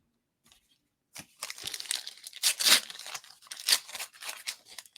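Trading-card pack wrapper being torn open and crinkled by hand: a quick run of crackling tears and rustles that starts about a second in.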